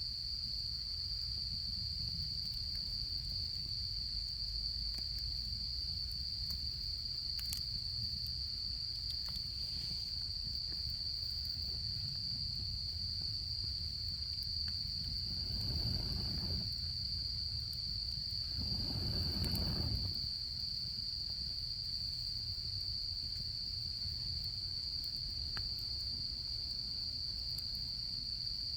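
Autumn crickets trilling in one steady, high-pitched chorus, over a low rumble with faint scattered clicks from a campfire. About halfway through, two brief swells of rushing noise rise and fade.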